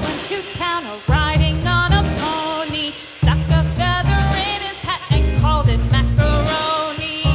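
Upbeat children's song music with a steady, bouncy bass beat and a lively melody line over it, in short repeating phrases.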